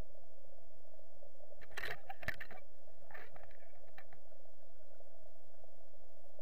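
Underwater river recording: a steady mid-pitched hum, with a cluster of sharp knocks and scrapes about two seconds in, a smaller one a second later, and a few faint ticks after.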